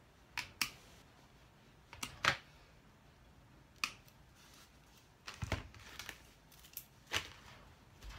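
Sharp clicks and snips of side cutters trimming plastic cable ties on a wire lattice panel, a few separate ones in the first four seconds. Later come a cluster of clicks and low knocks as the metal wire lattice panel is handled.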